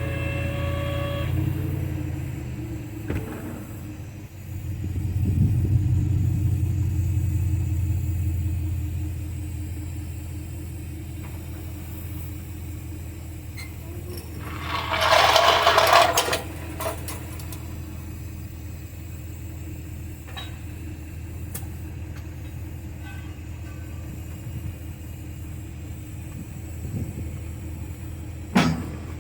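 A motor running with a steady low rumble that swells for a few seconds early on, and a loud hiss of air lasting about a second and a half roughly halfway through, with a few light clicks.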